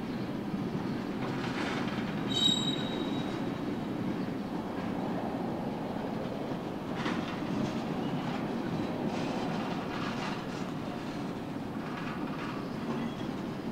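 Freight cars of a Union Pacific manifest train rolling past: a steady rumble of steel wheels on rail with scattered clicks over the rail joints, and a brief high-pitched wheel squeal about two and a half seconds in.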